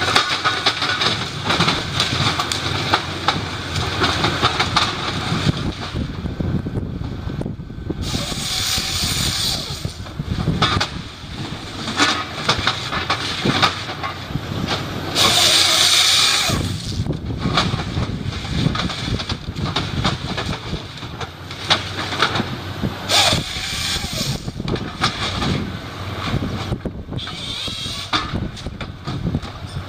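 A machine's engine running, with three louder bursts of high-pitched hiss along the way.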